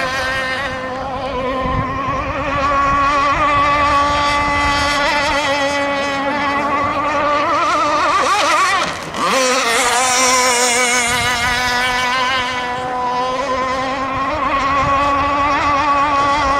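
Gas RC rigger boat's 29cc two-stroke engine running flat out with a steady high whine. About halfway through, the note wavers and dips sharply for a moment, then climbs back to full speed.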